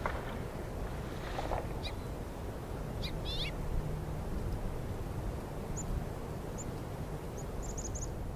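Wind rumbling on the microphone, with a brief rustle of branches at the start and again about a second and a half in as a bull moose rakes its antlers in a small shrub. Small birds chirp: a few quick descending chirps around two and three seconds in, then short high chirps several times near the end.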